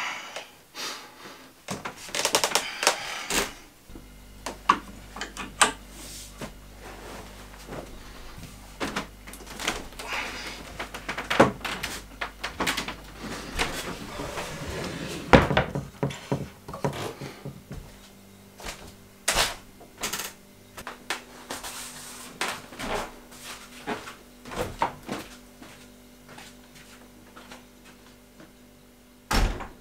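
Indoor household handling: a string of knocks, clicks and clatters like doors, drawers and objects being picked up and set down, with a loud thump at the start and another near the end. A steady low hum comes in about four seconds in.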